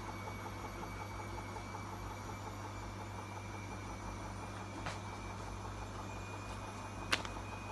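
Washing machine running, a steady low hum with a faint high whine over it. Two faint clicks, the second near the end a little louder.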